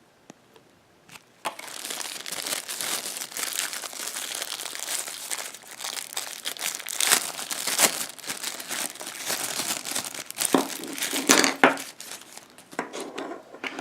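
Adapter packaging crinkling and rustling as it is opened to get the adapters out, starting suddenly about a second and a half in, with sharp crackles throughout and thinning out near the end.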